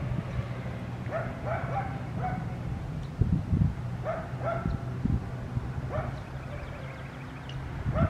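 A dog barking and yipping in short clusters of two or three, over a low steady hum.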